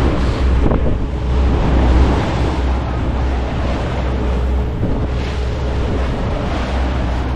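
Wind buffeting the microphone over the rush of churning water from a tour boat's wake, with the steady low drone of the boat's engine underneath.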